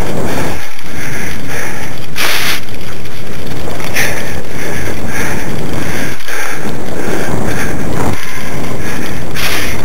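Loud, steady wind buffeting and rumble on the microphone of a camera moving fast over bumpy grass, near the top of the recording's level, swelling briefly every couple of seconds.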